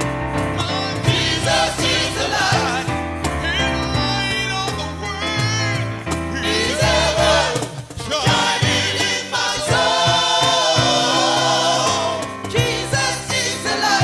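Gospel choir singing with instrumental accompaniment, voices sliding between notes over a steady backing.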